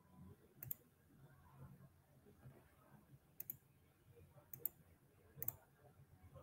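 Faint clicking of a computer mouse: four quick double clicks spread over a few seconds against near silence.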